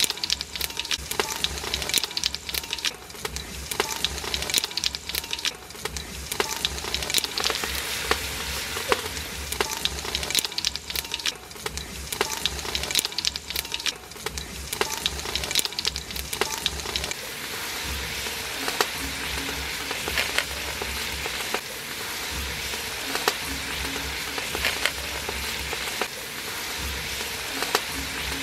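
Hot oil sizzling in a large aluminium pot, first with whole spices and then with sliced onions frying in it. Dense, sharp crackling for the first half or so settles into a steadier sizzle after about seventeen seconds.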